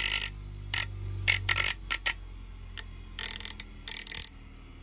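Grind Force 5000 bench grinder's motor hum dying away after switch-off, while scissor blades are pressed to its turning grinding wheels in about ten short scraping grinds.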